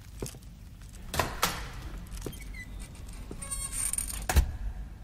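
Sound-effect foley of a door as people leave a room: a few light knocks, a metallic jangle of handle or keys about three and a half seconds in, then the door shutting with one loud thud.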